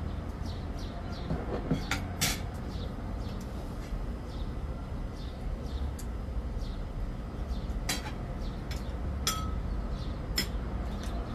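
Metal forks and spoons clinking against plates and bowls while eating: a few sharp clinks, two about two seconds in, then others near eight seconds and near the end, over a steady low rumble.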